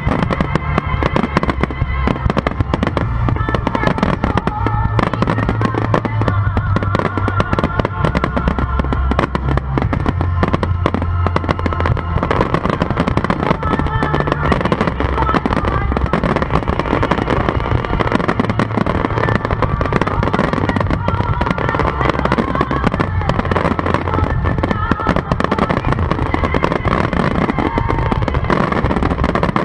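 Fireworks grand finale: a dense, unbroken barrage of shell bursts and crackling with deep low booms.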